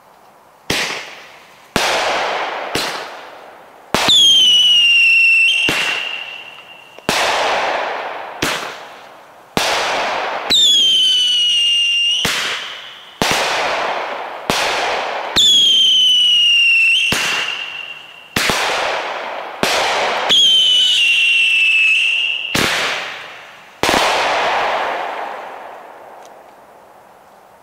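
Shelton's Ohio Bomber firework cake firing a string of about twenty shots, a sharp bang every second or so, each trailing off in echo. Four of the shots carry a whistling tail, a whistle that drops in pitch and then holds for a second or two. The shots stop about four seconds before the end.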